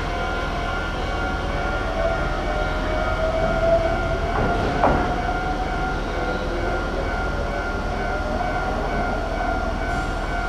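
Electric commuter train pulling out of a station platform just after its doors close, its motor whine rising slowly in pitch over the first few seconds. There is a single sharp clunk about five seconds in.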